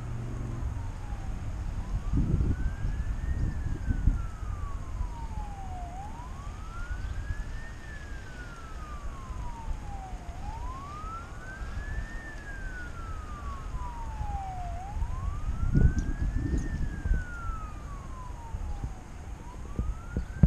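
Emergency-vehicle siren in a slow wail, rising and falling about once every four and a half seconds, over a low traffic rumble. Two spells of louder low rumbling come about two to four seconds in and again around sixteen seconds in.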